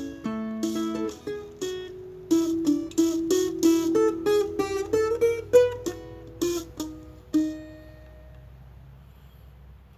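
Viola caipira (Brazilian ten-string folk guitar) playing a plucked single-note melody as an instrumental introduction. The last note rings out and fades about three-quarters of the way through, leaving a quiet pause.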